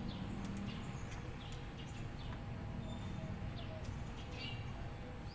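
Outdoor background: a steady low rumble with scattered short bird chirps and a few light clicks.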